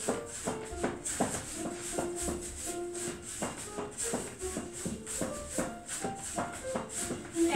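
Recorded swing jazz band music with a steady, quick beat.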